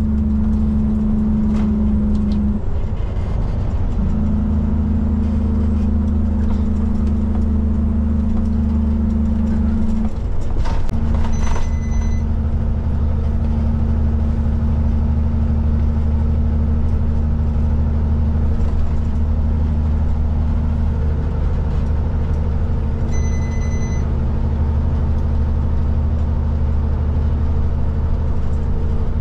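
Diesel engine of a B-double prime mover droning steadily under load, heard from inside the cab while on the highway. Twice, early on and about ten seconds in, the engine note breaks off briefly and comes back. Two short electronic beeps sound in the cab, about twelve seconds in and again near the last quarter.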